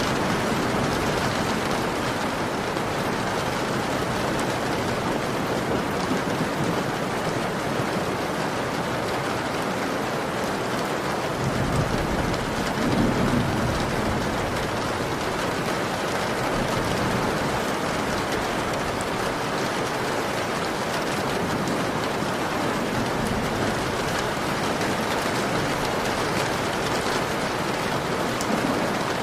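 Heavy rain falling on a window, a steady hiss, with a brief low rumble about twelve seconds in.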